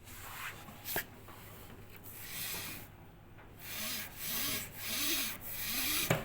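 Clothes dryer running with a rubbing screech that swells and fades over and over, a short rising-and-falling squeal in each swell, with a sharp click about a second in and another near the end. It is the screech of a dryer motor worn out from lack of servicing and in need of replacement.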